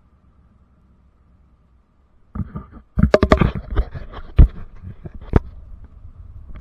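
After a near-silent start, a quick run of sharp knocks and scrapes with low rumble begins about two seconds in and thins out near the end.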